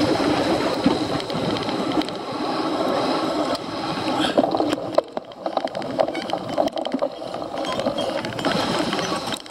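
Cyclocross bike ridden hard off-road: a steady rumble of tyres on rough ground with many small clicks and knocks from the chain and frame rattling, dipping briefly about five seconds in.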